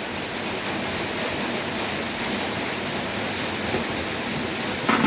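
Steady, even hiss of background noise with no distinct knocks or tones.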